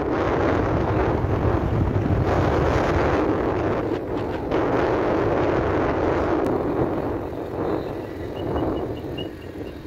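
Wind buffeting the microphone over the rumble of a vehicle moving along a road, dying down somewhat in the last few seconds.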